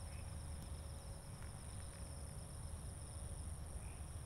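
Crickets trilling steadily at night: one high continuous tone and a lower, pulsing trill, over a faint low rumble.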